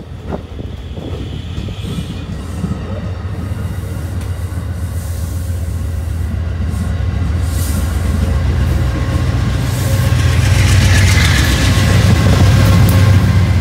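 Shore Line East push-pull train rolling past: the stainless steel coaches' wheels rumble over the rails, then the diesel locomotive's low engine hum builds and grows loudest near the end as it passes.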